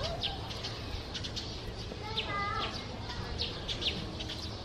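Small birds chirping in short, high, quickly falling notes, repeated many times. About two seconds in there is a brief pitched call.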